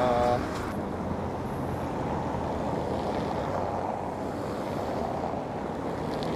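Steady low rumble of outdoor street noise with wind buffeting the microphone.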